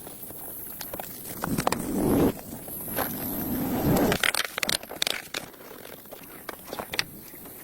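Crunching and rustling with scattered sharp clicks, and two longer swells of rustling noise between about one and a half and four seconds in.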